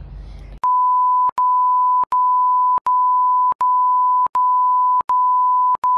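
A steady, loud beep tone, a censor bleep laid over the talking, starting about half a second in and broken by short clicking gaps about every three-quarters of a second.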